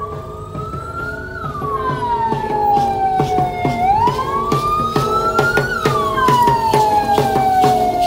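A siren wailing slowly up and down, each rise and fall taking about four seconds, over a steady drumbeat with rattling knocks.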